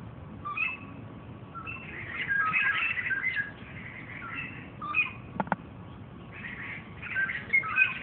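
Songbirds singing in a tree: clusters of short, quick chirping notes that overlap, busiest a couple of seconds in and again near the end. A single short click about halfway through.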